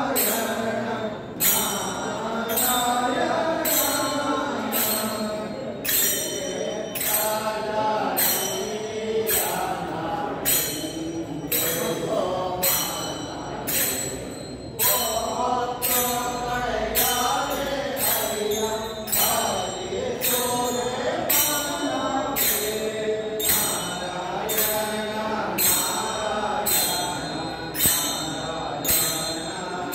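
Devotional group singing (sankirtane), a chanted melody with a steady beat of small hand cymbals struck about once a second.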